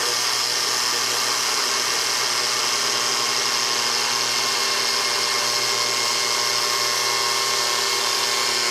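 Cordless angle grinder with a cutoff wheel running steadily under load, cutting through the head of a stainless steel bolt whose galled threads have seized it fast. A steady high whine with a grinding hiss.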